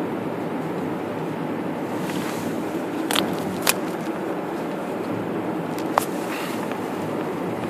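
Car driving along a snow-packed road: steady tyre and engine noise, with three sharp knocks, two about three to four seconds in and one near six seconds.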